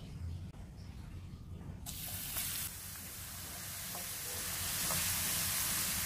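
Chopped garlic frying in cooking oil in a nonstick pan, sizzling. The sizzle starts suddenly about two seconds in and grows louder, with a wooden spatula stirring through it.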